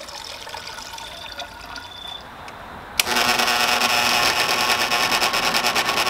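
Water poured from a pitcher into a grindstone's trough. About halfway through, an old Sedcon garage door opener motor switches on with a click and runs steadily with a fast, even pulsing, driving the wet grindstone through double down-geared belt pulleys.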